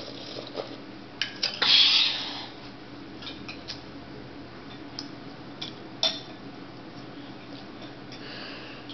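Scattered light clicks and taps of cutlery against a dish while eating, with a louder hissing noise lasting about a second, about two seconds in.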